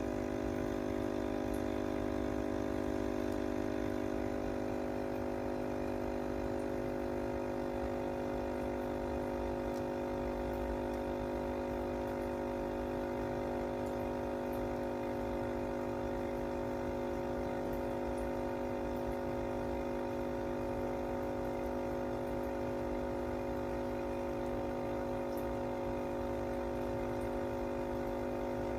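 Aquarium pump running with a steady hum of several fixed tones over a low rumble.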